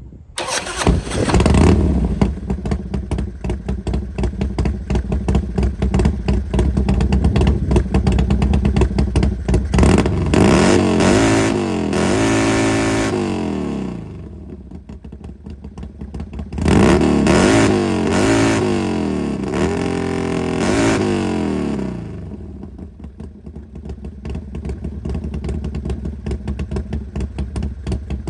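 2005 Harley-Davidson Twin Cam V-twin motorcycle engine starting up about half a second in and settling into a loud idle. The engine is then revved twice, each time with several rises and falls in pitch, dropping back to idle between and after.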